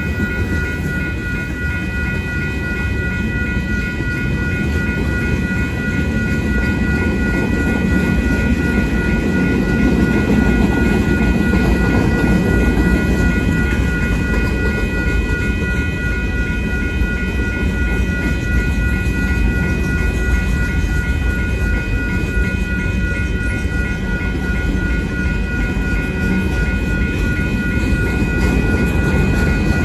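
Freight cars of a manifest train rolling past in a steady, heavy rumble of wheels on rail. Over it a railroad crossing bell rings in a fast, even repeat.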